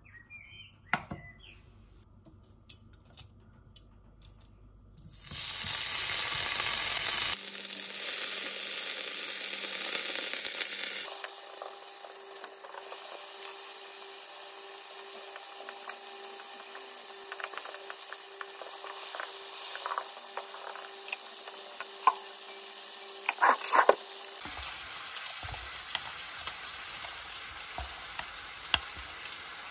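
Pork belly and sliced garlic in sesame oil sizzling in a stainless-steel frying pan. The sizzle starts about five seconds in, after a few light clicks. Near the end it gives way to a quieter hiss.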